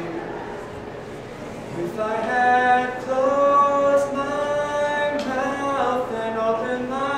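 Mixed chamber choir singing a cappella in close harmony, holding long chords. The singing is soft for the first two seconds, then swells into a fuller chord about two seconds in.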